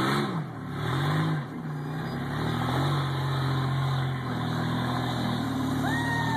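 Rock buggy engine revving hard and easing off again and again as the buggy climbs rock ledges in reverse at full throttle. Near the end there is a short high whistle that rises and then falls.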